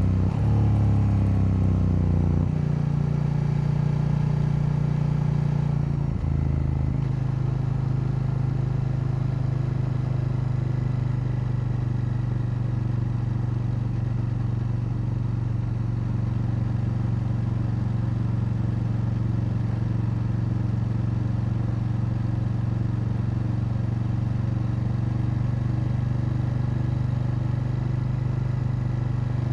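KTM 890 Duke L's parallel-twin engine running on the move, its pitch stepping down about two and a half and again about six seconds in, then holding a steady note.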